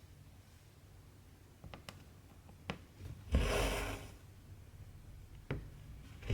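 Hand cross-stitching on cloth: the needle clicks against the fabric a few times, and about three seconds in the cotton thread is drawn through with a rasping swish lasting about a second.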